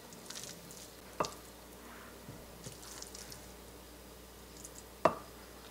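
Wooden pestle pounding pressure-cooked beef and chana dal in a wooden mortar: soft squishy mashing with two hard thuds, one about a second in and one near the end. The meat is tender enough to mash into a paste easily.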